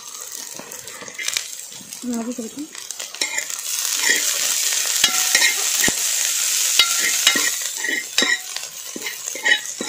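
Chopped shallots, garlic and curry leaves sizzling in hot coconut oil in a wide metal pan, with scraping and clicking from the stirring against the metal. The sizzle grows louder about three and a half seconds in and eases near the end.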